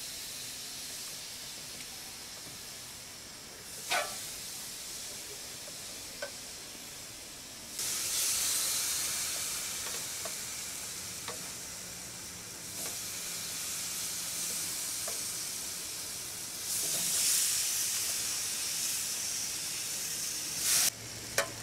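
Marinated chicken thighs sizzling on a hot gas grill grate as they are laid down one by one. The sizzle swells each time a piece goes on, about 8, 13 and 17 seconds in, with a couple of sharp clicks earlier on.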